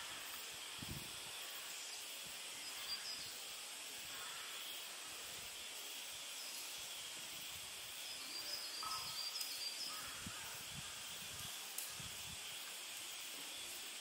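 Forest ambience: a steady high insect hiss with a few brief bird chirps, most of them in a cluster about nine seconds in, and a few soft low thumps.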